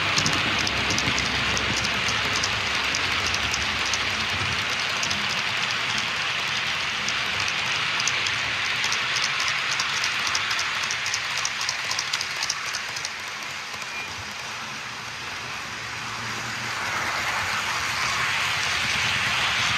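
HO-scale model train running on the layout's track: a steady rolling hiss with light, regular clicks through the first dozen seconds. It dips a little about two-thirds of the way through and builds again near the end.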